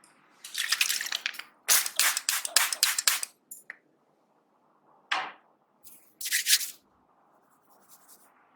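Hair cracking in a head massage: locks of hair pulled and twisted between the fingers give dense crackling bursts, one brief and one longer in the first few seconds. A short falling swish comes about five seconds in, then a last short crackle.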